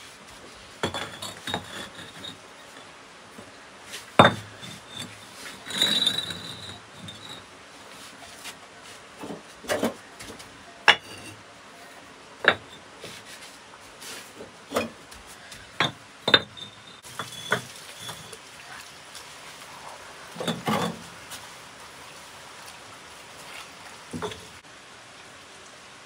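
Scattered sharp knocks and clinks of hard objects being handled, a dozen or so spread irregularly, some with a brief high ring, and a longer scraping rustle about six seconds in and again around twenty-one seconds in.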